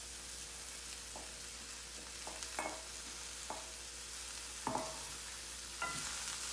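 Shredded cabbage and vegetables sizzling in hot olive oil in a stainless steel frying pan, with a wooden spoon scraping and knocking against the metal bowl and pan: about six sharp clinks that ring briefly over the steady sizzle.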